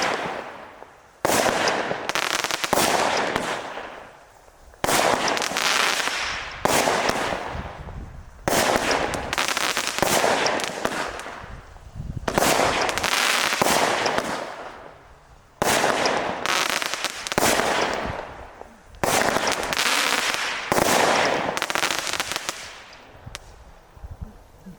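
Hestia YH2025 firework battery firing shot after shot, about a dozen at roughly one every second and a half to two. Each shot is a sharp bang followed by crackling that fades away. The last shot dies out near the end.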